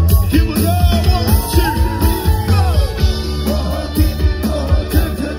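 Live band music with a singer: a sung melody over a steady beat and heavy bass.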